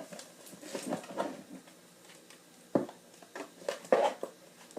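Slime containers being handled and shuffled: scattered light knocks and clicks, the sharpest about three and four seconds in.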